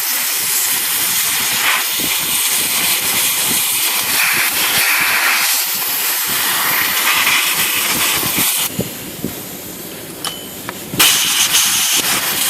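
Compressed-air blowgun blasting through a typewriter's type bar segment, blowing out the cleaning chemical: one long, loud hiss, easing off at about nine seconds, then a second blast near the end.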